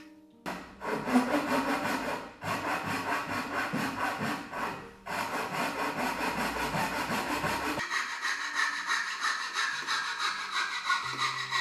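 Fine-toothed back saw (dovetail saw) cutting dovetails in a wooden board by hand: quick runs of back-and-forth rasping strokes broken by several short pauses between cuts.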